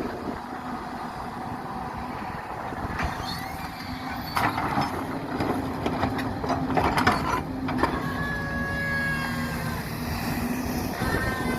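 Hyundai R220 excavator at work: its diesel engine runs steadily with a low hum. A run of sharp knocks and hissing bursts comes from about three to eight seconds in, with brief high squeals after it.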